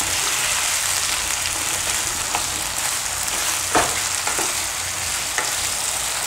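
Sliced potatoes and cumin seeds sizzling in hot oil in a non-stick wok, stirred with a wooden spatula that scrapes and knocks against the pan now and then, the loudest knock a little under four seconds in.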